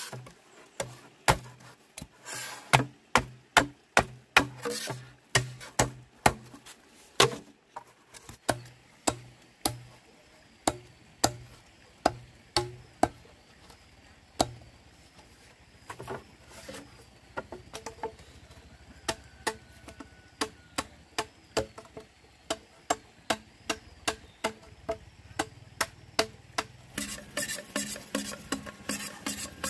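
Machete blade chopping into green bamboo culms, a steady run of sharp strikes about three every two seconds. The chops grow softer about halfway through, and near the end they come as quicker, lighter strokes.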